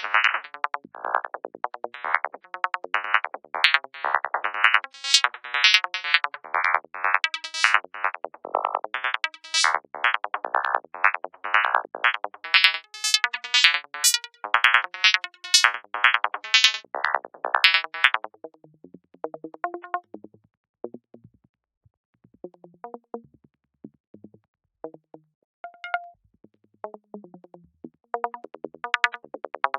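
VCV Rack software modular synthesizer patch playing forest psytrance sound effects: a fast stream of short pitched blips that jump around in pitch. About 18 seconds in it thins to sparse, scattered blips, then turns dense again near the end.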